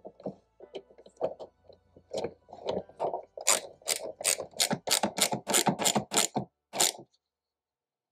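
Ratchet wrench clicking as it runs down 8mm nuts. A few scattered clicks come first, then from about three seconds in a fast, even run of about four to five clicks a second, which stops abruptly about a second before the end.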